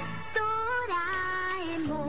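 Background music with a melody of held, slightly wavering notes that step down in pitch.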